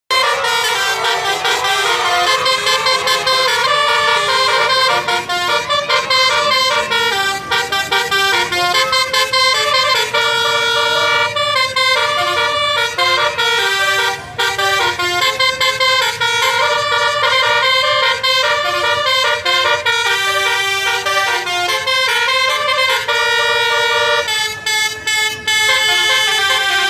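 Basuri multi-tone 'telolet' bus horn playing a fast melody of held notes, the pitch stepping up and down every fraction of a second, with a short break about fourteen seconds in.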